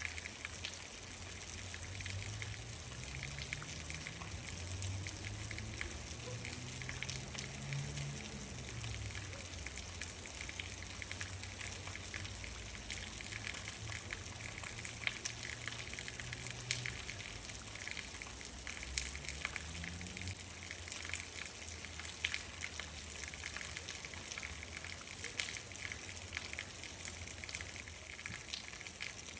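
Steady rain, with many individual drops ticking through a constant hiss. A low hum rises and falls underneath for several seconds early on, and again briefly later.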